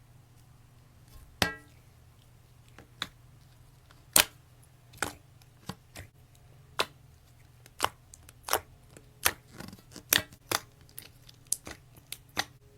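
Slime being played with, giving sharp pops and clicks at uneven intervals that come faster in the second half.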